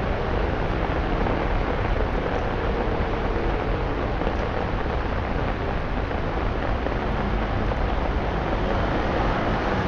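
Steady rain with road traffic hissing through standing water on a flooded street, an even wash of water noise without distinct events.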